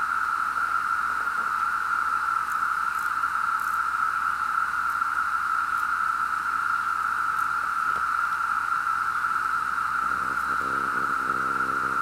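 Massed chorus of periodical cicadas, a huge number of insects screaming at once, merging into one steady, unbroken drone that sounds like running water.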